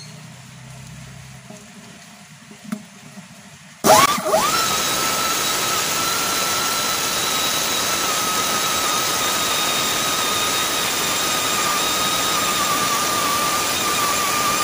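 A high-speed tyre buffing tool starts about four seconds in, its whine rising quickly and then holding steady over a loud hissing rasp. It is buffing the inner liner of a tyre to strip old glue before a patch is fitted.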